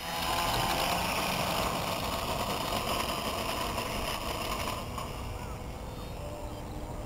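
Radio-controlled P-47 Thunderbolt model's motor and propeller at takeoff power, a steady whine during the long takeoff roll, growing fainter after about five seconds as the plane moves away.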